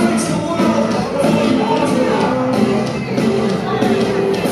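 Live rock band playing: electric guitars, bass and drums with repeated cymbal hits, and a man singing lead.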